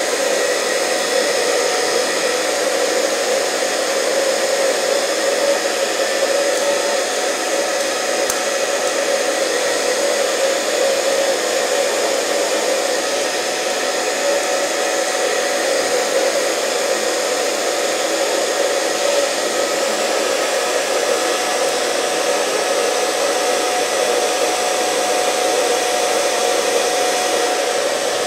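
Hotness hand-held hair dryer running steadily on its low airflow, high heat setting: an even rush of air with a steady motor hum.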